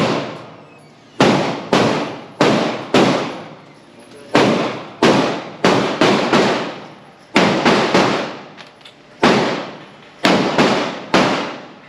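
PSA Dagger Compact 9mm pistol firing a magazine: about sixteen shots in quick strings, half a second to a second apart. Each shot is followed by a long echoing tail.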